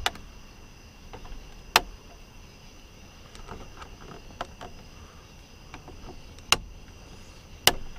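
Sharp clicks and small taps from hands working an interior light fixture while its bulb is swapped for an LED: four loud clicks, right at the start, about two seconds in, at six and a half seconds and near the end, over a faint steady high hum.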